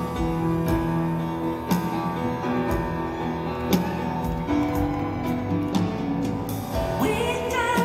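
Bösendorfer grand piano played live, with notes struck about once a second. A woman's singing voice begins near the end.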